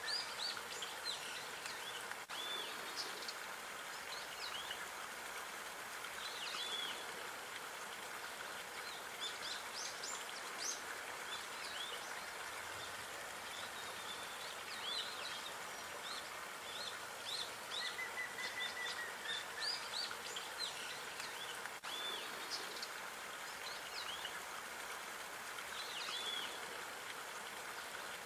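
Small songbirds chirping and calling in many short high notes over a steady background hiss of outdoor ambience, with one short even trill about two-thirds of the way in.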